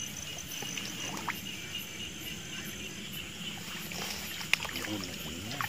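Night chorus of insects and frogs: a steady high chirring, with a faster pulsed chirp on top that stops about three seconds in. A single sharp click comes a little after four seconds.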